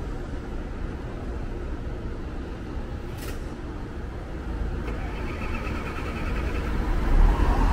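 City street traffic: a car's engine and tyres going by, growing louder in the last couple of seconds, with a brief sharp sound about three seconds in.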